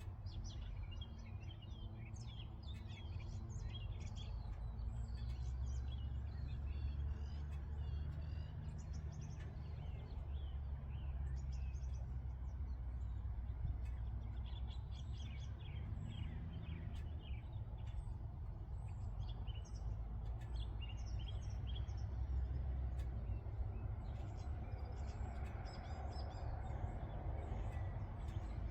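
Many small birds chirping and twittering in quick, overlapping calls over a steady low rumble. Near the end a broader noise swells, like a vehicle drawing near.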